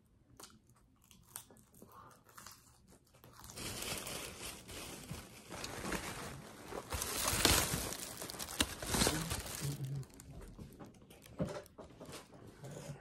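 Thin plastic bag crinkling and rustling loudly as a hand rummages in it, from about three and a half seconds in until about ten seconds. A few faint clicks come before it.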